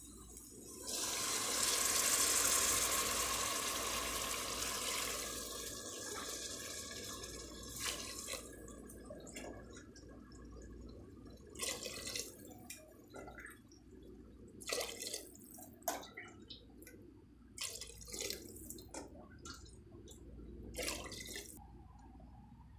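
Water poured into an aluminium pressure cooker of sautéed vegetables: a steady splashing pour starts about a second in and tapers off, followed by several shorter splashing pours and trickles.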